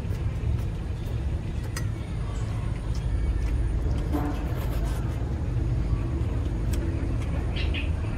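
A person eating noodles: faint slurping and chewing with a few light clicks of a metal fork, over a steady low rumble.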